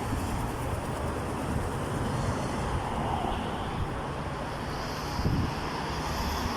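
Steady traffic and road noise, a constant low rumble with no distinct events.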